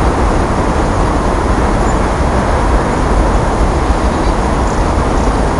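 Steady rushing outdoor noise: a deep rumble under an even hiss, with no single event standing out.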